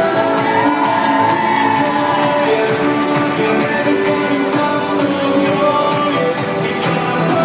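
A song playing, with a voice singing over sustained instrumental chords.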